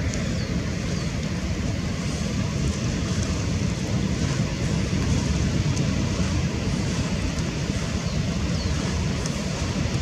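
Steady low rumbling wind noise on the microphone outdoors, with a few faint, short high chirps.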